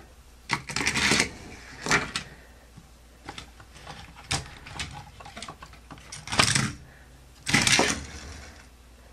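Toy cars and a plastic toy car-transporter trailer being handled. There are about five bursts of plastic clatter and rattle as the cars are knocked into place on its decks.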